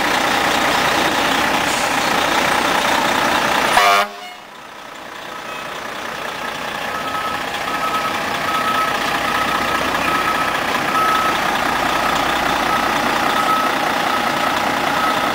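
Fire engine running loudly; about four seconds in the sound drops off sharply, then builds back up as the truck backs toward the station bay, with a reversing alarm beeping about twice a second.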